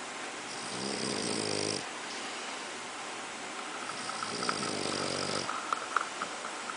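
Snoring: two long, buzzing snores, about four seconds apart, each lasting a little over a second, with a few small clicks around and after the second one.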